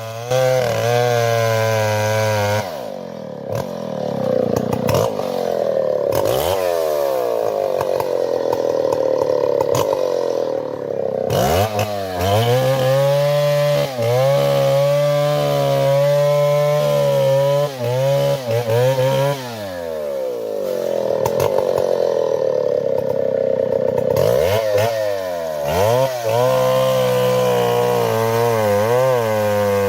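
Chainsaw engine running at high revs while cutting timber, its pitch dropping and climbing again several times as the throttle is eased off and opened back up.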